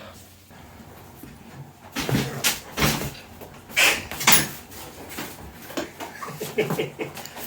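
Knocks and clatter of dishwasher parts being handled and taken apart, a string of sharp hits starting about two seconds in, the loudest four within the next three seconds.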